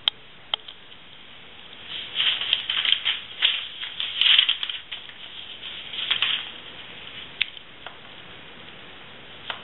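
Dissecting scissors snipping through a fetal pig's skin and tissue: a cluster of crisp cuts from about two seconds in to about six and a half, with a few single sharp clicks before and after.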